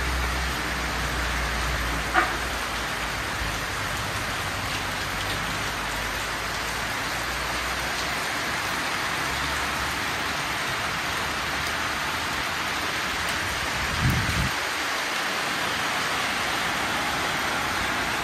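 Steady rain falling on plants and a corrugated metal roof, an even dense hiss. There is a single sharp tap about two seconds in and a brief low thump near the end.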